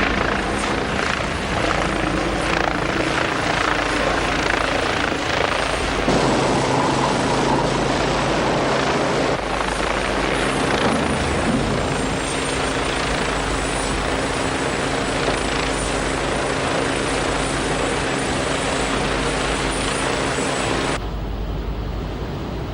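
Westland Wasp helicopter running loud, its rotor noise under a steady high turbine whine. The sound cuts off suddenly about 21 seconds in, leaving a quieter low hum.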